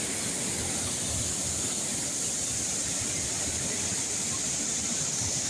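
Waterfall rushing steadily, an even hiss of falling water that does not change.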